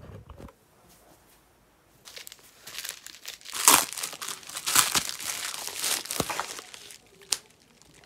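Plastic bubble mailer being opened by hand, with the flap peeled back and the plastic crinkling and tearing in quick rustling bursts starting about two seconds in. A single light tap follows near the end.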